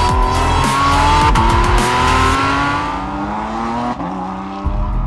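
Porsche 718 Cayman GT4 RS Clubsport's 4.0-litre flat-six race engine accelerating hard, its pitch climbing, with one upshift about a second and a half in, over a music track with a deep pulsing bass.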